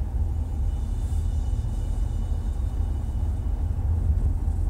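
Steady low rumble of a car driving slowly, engine and tyre noise heard from inside the cabin.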